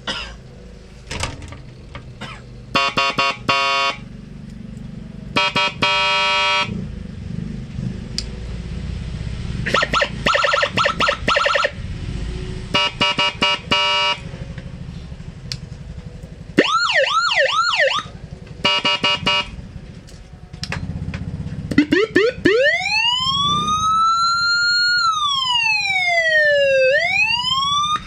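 Electronic siren module stepping through several of its tones: short bursts of rapid pulsed beeping, then a fast yelping warble, then a slow wailing siren tone that rises, falls and rises again near the end.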